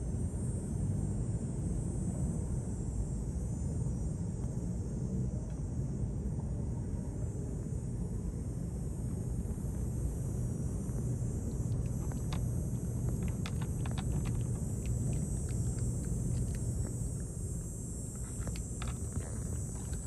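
A steady low outdoor rumble with a faint hiss above it; past the middle comes a run of small sharp crunches lasting several seconds as a cat chews dry treats.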